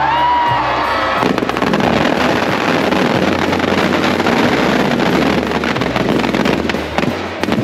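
Firecrackers packed in a burning Ravana effigy going off, a dense rapid crackling and popping that starts about a second in, over a steady low bass.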